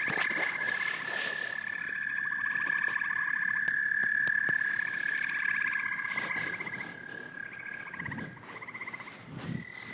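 A chorus of frogs calling: a steady high-pitched trill with overlapping fast pulsed trills. About eight seconds in, the chorus drops away and only fainter scattered calls remain.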